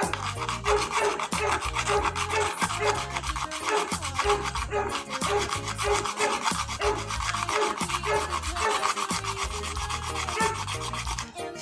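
Rapid rasping strokes of a file or abrasive worked back and forth over the repaired plastic step, finishing the surface of the rebuilt part.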